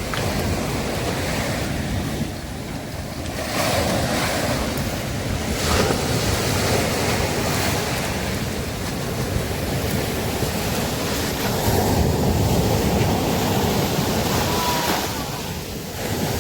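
Sea surf breaking and washing up a beach, swelling and easing every few seconds, with wind on the microphone.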